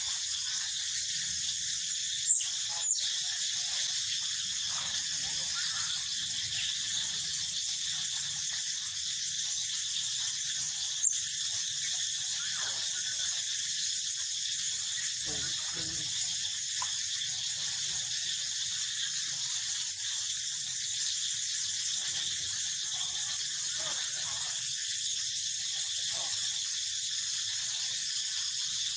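Steady high-pitched drone of an insect chorus, with a few brief, sharp high squeaks or chirps about two, eleven and twenty seconds in.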